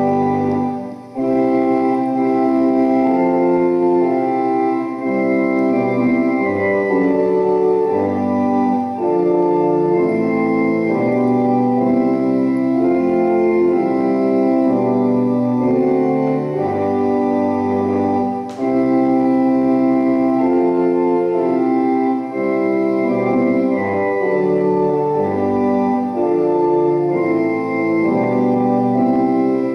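Church organ playing a hymn in held chords, with brief breaks between phrases.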